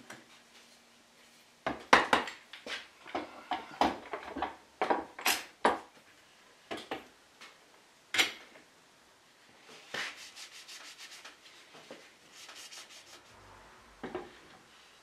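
Hand work on wooden chair parts: a run of short, irregular rubbing and scraping strokes on wood, then a quicker, lighter run of strokes in the second half.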